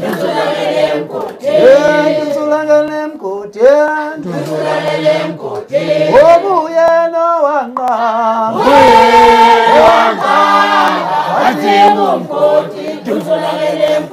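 Men singing an unaccompanied song into a microphone in gliding, held phrases, with a fuller group of voices joining in about halfway through.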